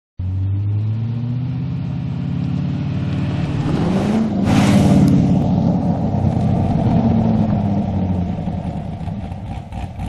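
Chevrolet Corvette V8 engine accelerating toward the listener, passing close by about five seconds in with a burst of engine and tyre noise, then dropping in pitch and fading as the car drives away.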